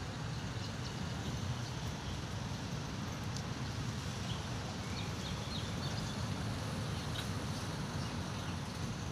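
Steady outdoor background noise, mostly a low rumble, with a few faint, short high chirps.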